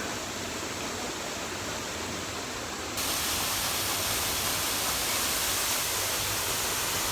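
Steady rush of a rain-fed waterfall pouring off a cliff, a seasonal fall running only because of three days of rain. It gets louder about three seconds in.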